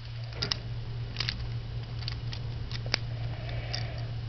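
Plastic parts of a scout-size Transformers Nightbeat figure clicking and rubbing as it is twisted and folded by hand: a scattering of sharp clicks over a steady low hum.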